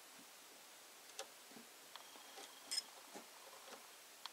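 Faint, scattered ticks and clicks of multimeter probe tips touching and being positioned on the bare metal legs of a blade fuse in a car fuse box.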